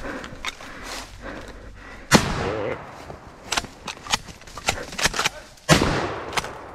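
Two shotgun blasts at close range, about three and a half seconds apart, each trailing off in a long echo: finishing shots on a wounded deer. Short sharp clicks come between the two shots.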